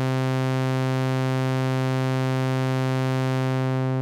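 Sawtooth wave from the u-he Zebra 2 software synthesizer holding one steady low note, a bright, buzzy tone with many overtones. Near the end the filter cutoff is turned down and the top end fades, so the tone turns duller as the wave is rounded off.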